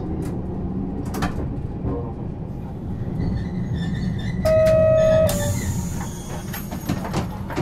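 Interior running sound of Nagasaki Electric Tramway Series 202 tram car No. 210, a 1950 Nippon Sharyo car with Mitsubishi resistor control: a steady low rumble of wheels and running gear on the rails, with occasional clicks and knocks. About halfway through, a horn sounds once, a single loud tone lasting just under a second, followed by a short hiss.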